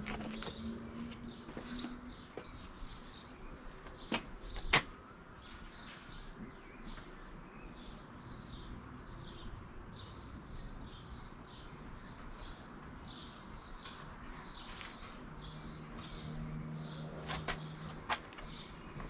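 A small bird chirping over and over, short high falling chirps about two a second. A few sharp clicks and knocks from handling the glued boot lid handle in its plastic spring clamps, the loudest a snap about five seconds in and two more near the end.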